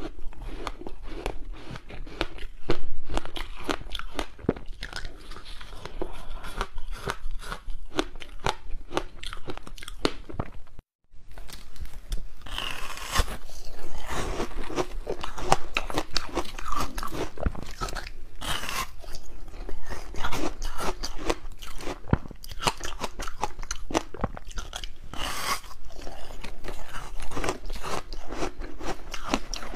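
Close-miked crunching and chewing of ice mixed with passion fruit: many sharp bites and crackling crunches in quick succession. A brief gap of silence about eleven seconds in.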